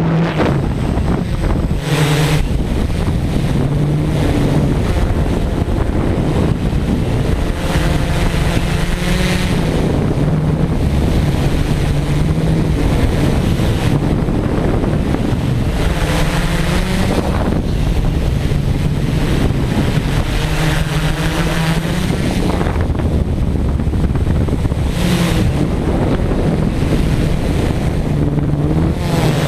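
Wind buffeting the microphone over the hum of a multirotor drone's motors and propellers, the pitch shifting up and down as it is flown.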